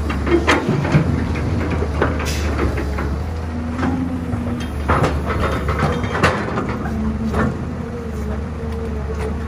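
Caterpillar hydraulic excavator's diesel engine running steadily under load as it works. Dirt and rocks drop into a steel dump-truck bed with sharp clanks and knocks, and the bucket knocks again as it digs back into the pile. Short whining tones come and go from the hydraulics.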